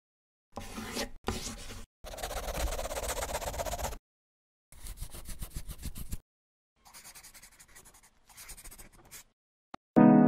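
Scratchy rasping like a pencil scribbling on paper, in about six bursts of one to two seconds with short gaps between them. A click, then a piano chord struck near the end.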